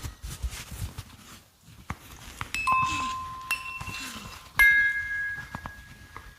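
Wind-up musical mechanism inside a vintage Eskimo doll playing a lullaby in slow, single ringing notes that fade away. The notes begin a couple of seconds in, after some low rustling, and the third of three is the loudest.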